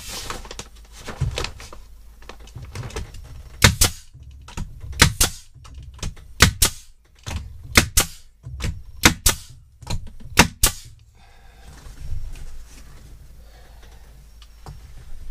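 Pneumatic brad nailer firing brad nails up through shiplap ceiling boards: a string of about a dozen sharp snaps, many in quick pairs, from about four to eleven seconds in.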